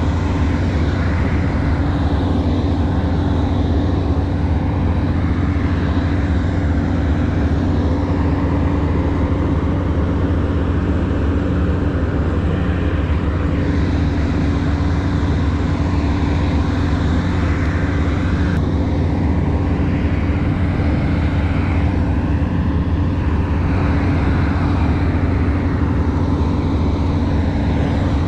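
A steady engine drone at an even, loud level, with a constant low hum and no change in pitch.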